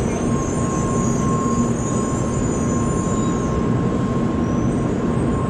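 N700-series Tokaido Shinkansen bullet train pulling slowly into the platform: an even, steady rush of running noise with a thin steady tone and a faint high hiss.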